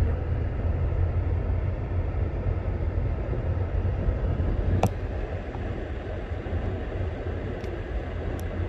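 Car engine idling, a steady low rumble heard from inside the cabin, with a single sharp click about five seconds in.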